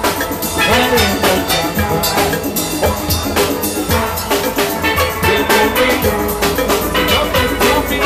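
Steel band playing live: many steelpans ringing out a melody over a steady drum beat.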